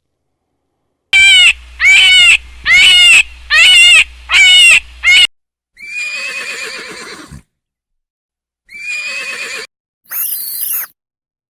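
Horse whinnying: a run of five short, loud, high calls, then two longer quavering whinnies, with a brief shrill sound near the end.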